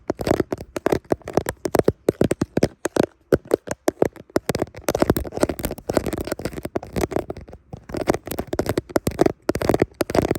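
Fingernails tapping and scratching rapidly on a hand-held device, quick irregular taps that run together into scratching now and then.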